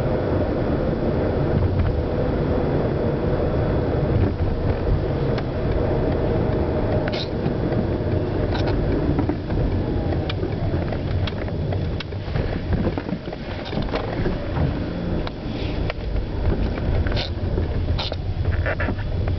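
Peugeot 307 running, a steady low rumble, with short high-pitched clicks now and then from about seven seconds in.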